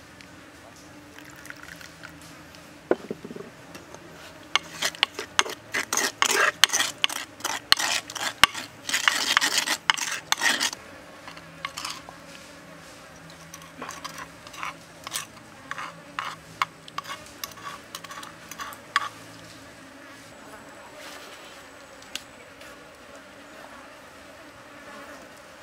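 A spoon stirring and scraping chili-garlic dipping sauce in a wooden mortar. There is a dense run of scrapes and clicks for several seconds, then sparser scrapes as the sauce is spooned out into a bowl.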